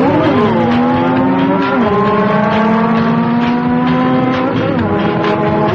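A pack of motorcycles riding together, several engines running at once, their pitch dipping and rising again now and then as the riders shift and throttle.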